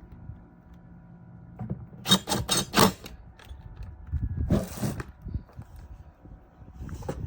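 Metal mounting hardware being worked with a hand tool while a bracket is fastened to the radio unit: a quick run of four sharp clicks about two seconds in, then a short scrape about two seconds later.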